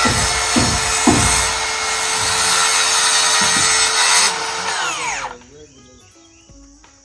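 Electric power tool running at full speed, with two sharp knocks in the first second or so. About four seconds in it is switched off, and its whine falls in pitch as the motor spins down to a stop.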